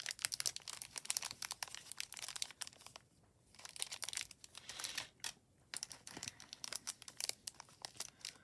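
Small clear plastic bags of cabochons crinkling and crackling as they are handled, on and off with a short lull about three seconds in.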